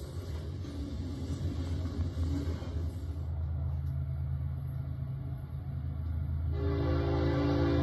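Rumble of a double-stack container train rolling past. About six and a half seconds in, a train horn starts sounding a held chord of several notes over a steady low engine drone.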